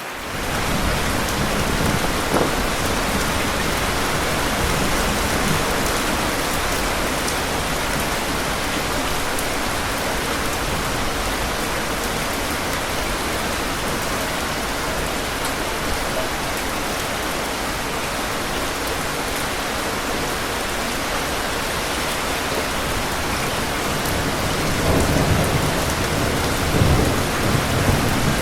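Steady rain hissing, with low rolling thunder: a rumble in the first few seconds and a louder one near the end.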